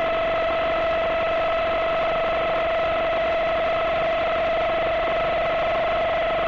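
Bridgeport mill head spindle driving a milling cutter through UHMW plastic: a steady high whine with overtones over the noise of the cut. The spindle speed is high enough that the plastic starts to burn.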